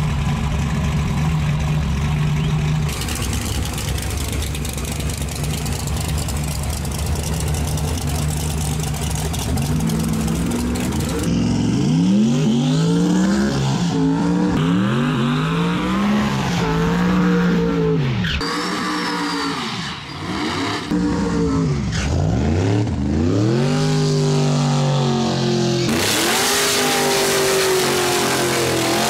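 Drag-race engines at the starting line: a big race engine idling. From about ten seconds in, engines are revved hard again and again, each rev rising and falling, with a high whine rising and falling near the middle. Near the end another race engine runs loud.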